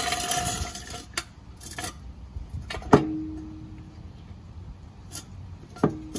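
Metal jack stand scraping over concrete as it is slid into place under the car, fading out in the first second. Then two sharp metal clanks, one about three seconds in and one near the end, each with a short low ring, as the stand is set and adjusted.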